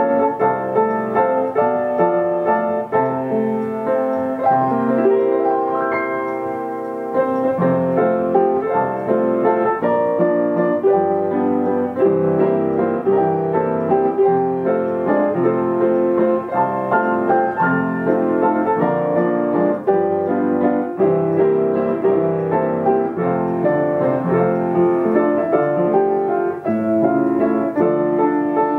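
Yamaha upright piano playing a popular tune by itself as a player piano, with many notes in a steady rhythm. It goes briefly softer about six seconds in, then returns to full strength.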